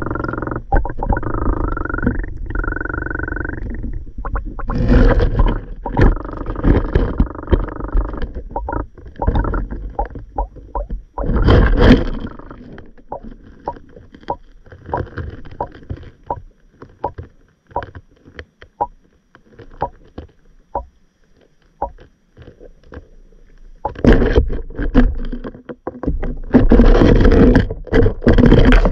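Muffled underwater sound of a camera submerged in a shallow stream. A steady hum stops about four seconds in, then water rushes and rumbles in bursts, with many small clicks and knocks in the quieter stretch between them.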